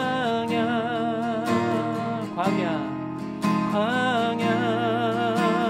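Strummed acoustic guitar chords accompanying a slow worship song, with a voice holding long notes with vibrato over them.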